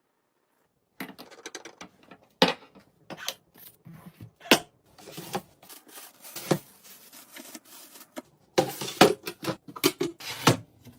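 Irregular taps, clicks and clatters of food containers and packets being handled and set down during a restock, starting about a second in.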